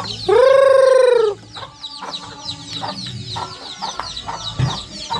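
Backyard chickens calling: one loud drawn-out call about half a second in, then a run of short high chirps and soft clucks.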